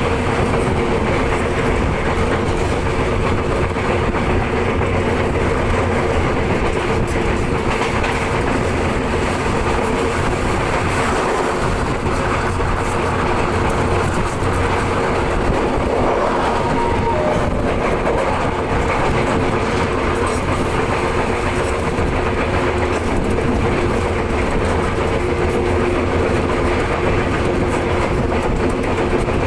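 Commuter train running along the track: a steady rumble with a constant hum, even in level throughout.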